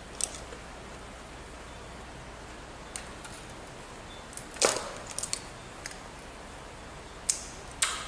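A few sharp clicks and light knocks from wire and hand tools being handled at a fire alarm control panel, with a louder clatter a little past halfway, over a steady hiss.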